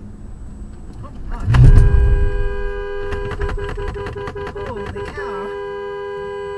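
Car horn sounding one long two-tone blast, held from about a second and a half in until the end, with a loud low thump as it starts: a warning at a car driving the wrong way head-on.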